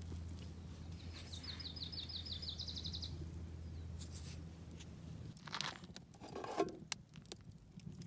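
A bird sings a run of high chirps that quicken as they go, over a steady low hum that stops about five seconds in. A few light clicks and knocks follow near the end.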